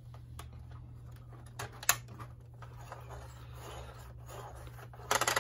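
Hard plastic toy parts being handled: light scraping and rattling, one sharp plastic click about two seconds in, and a quick run of rapid clicks near the end.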